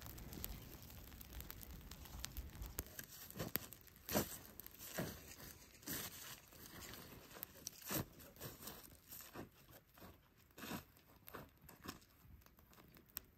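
Footsteps in boots crunching through dry leaves and dead grass, one irregular step about every second.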